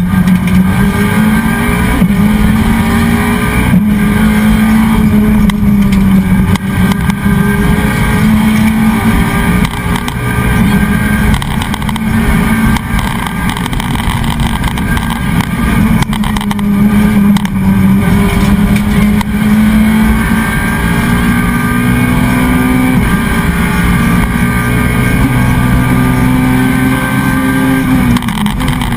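Renault Clio Williams Group A rally car's 2.0-litre 16-valve four-cylinder engine at hard throttle, heard from inside the cabin: the revs hold high and rise, with brief dips at each gear change, and the pitch falls sharply right at the end as the car slows.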